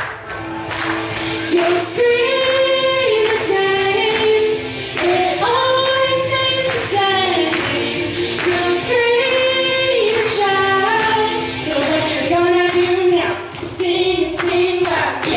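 Children singing a worship song into microphones over music. The voices come in about two seconds in, with long held notes.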